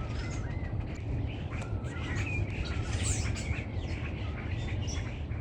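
Several small birds chirping and calling in quick, overlapping short notes and sliding whistles, over a steady low rumble.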